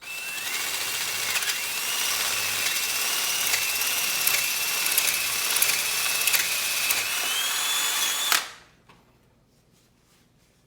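Power drill running with a 21/64 bit, drilling out the partially stripped thermostat bolt hole in an M38A1 Jeep cylinder head to take a Helicoil. The motor whine dips briefly several times, rises a little in pitch near the end, and stops about eight seconds in.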